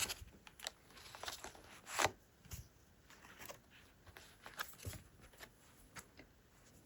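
Tarot cards being handled and laid out: faint, irregular flicks, slides and light taps of card stock, the sharpest about two seconds in.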